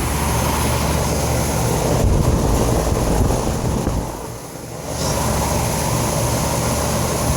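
Outdoor air-conditioner condenser units running: a steady low hum with the rush of the spinning fans, dipping briefly about four seconds in.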